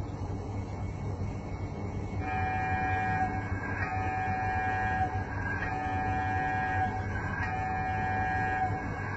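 Toy model MRI scanner sounding a buzzing, multi-pitched electronic tone in pulses of about a second and a half with short gaps, starting about two seconds in, over a steady low hum.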